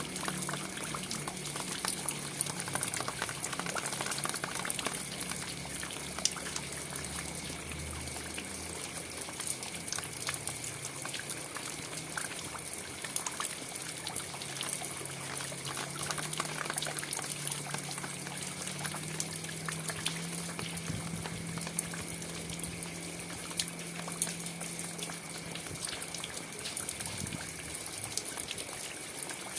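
Steady rain falling, with many separate drops ticking close by. A low hum that shifts in pitch runs underneath.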